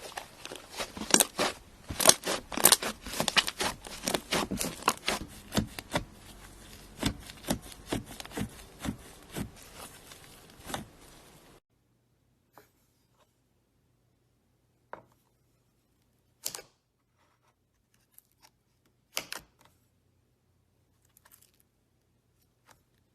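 Slime being squished and worked by hand: a dense run of sharp clicks and pops for about the first half, then, after a sudden cut, only a few scattered pops.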